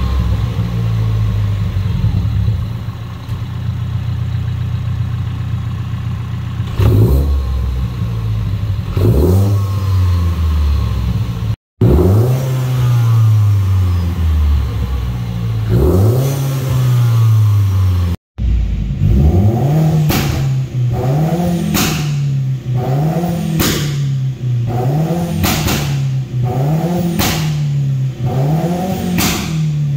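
BMW B48 2.0-litre turbocharged four-cylinder with a large top-mount turbo, being free-revved in Park. There are a few single blips first, then a quick run of repeated blips about once every second and a bit, each with a short sharp burst near the top of the rev.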